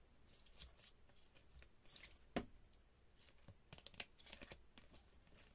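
Faint clicks and scrapes of clear rigid plastic trading-card holders knocking and sliding against each other as a stack of cards is handled, with one sharper click about two and a half seconds in.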